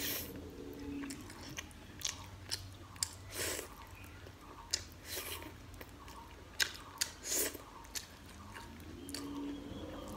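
Close-miked chewing of a mouthful of rice and chicken gravy eaten by hand, with short, sharp, wet mouth clicks and smacks at irregular moments.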